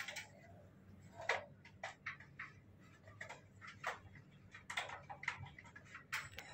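Irregular light clicks and taps, a dozen or so scattered over a few seconds against a quiet background.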